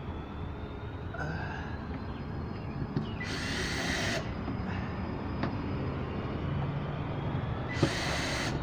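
Cordless drill running in two short bursts of about a second each, a few seconds apart, as it drives the mounting screws of the caster wheels tight. A steady low rumble sits underneath.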